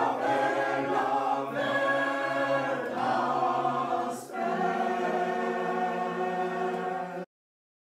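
A group of voices singing together in long held notes, phrase after phrase; the singing cuts off suddenly near the end.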